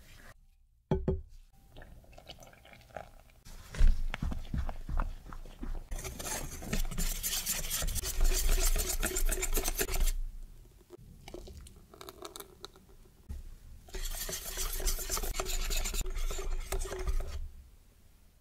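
Wire whisk beating runny chocolate icing in a glass bowl, the wires scraping and clinking against the glass in two fast bouts, about six seconds in and again about fourteen seconds in. Before that, softer scraping and a few knocks as a silicone spatula stirs the dry cocoa and sugar mix.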